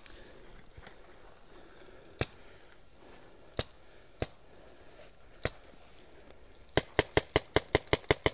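Paintball marker shots: four single pops spread a second or more apart, then a fast string of about nine shots in a second and a half near the end.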